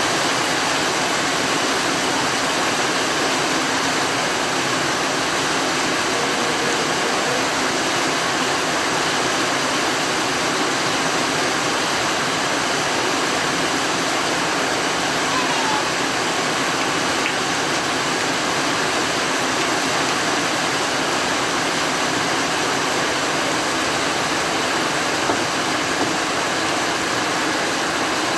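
Steady rain falling on trees and grass: an even, unbroken hiss.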